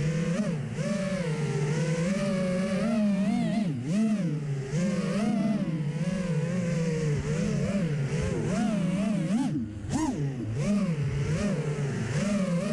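FPV quadcopter's electric motors whining, the pitch rising and falling quickly with throttle changes. They briefly back off about three quarters of the way through, then surge again.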